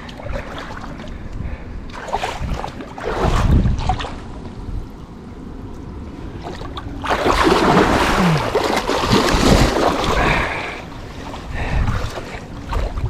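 Water splashing and sloshing at the canal's edge, loudest for about three seconds past the middle, with wind rumbling on the microphone.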